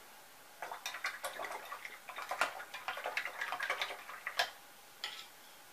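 A paintbrush clicking and rattling against the inside of a small stainless-steel cup as it is stirred about: a quick, irregular run of ticks for about four seconds, then one more tap.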